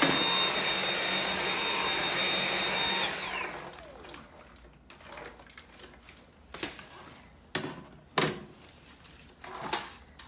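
Dyson V7 Motorhead cordless vacuum running with the standard attachment head, a steady rush of air with a high whine. It is switched off about three seconds in, and the whine falls in pitch as the motor winds down. A few short knocks and clicks of handling follow.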